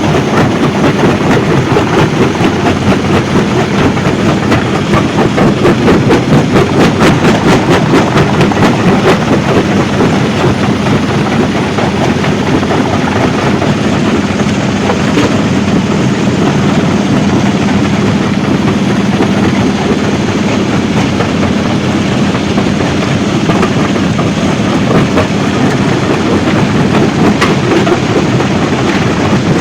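Stone crushing plant running: a loud, steady clatter of rock being fed and crushed, with a constant low hum underneath.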